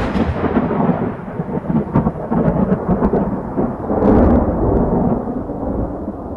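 Loud, steady rushing rumble of a tall waterfall's falling water, easing off near the end.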